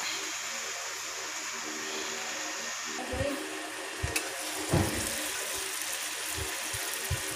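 Chicken pieces sizzling steadily in a covered electric grill pan, an even hiss, with a few low thumps in the second half.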